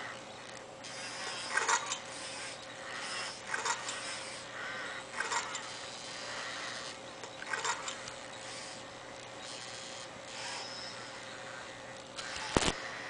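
Pleo robotic dinosaur holding its plastic leaf in its mouth, giving short rasping, chewing-like noises and small pitched calls from its speaker every second or two over a faint steady hum. A sharp click comes near the end.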